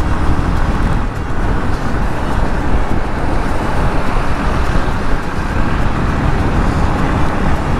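Steady rumbling wind and road noise from a motorcycle riding at about 55–60 km/h through city traffic, picked up by a camera on the rider's helmet.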